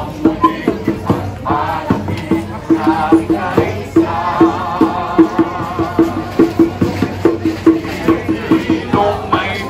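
Music with a quick, steady pulse of short repeated low notes, and a wavering melody line above it from about four seconds in.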